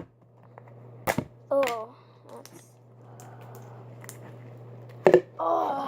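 A few sharp plastic clicks and snaps as a large plastic slime tub is handled and opened, one near the start and a louder one about five seconds in, over a steady low electrical hum.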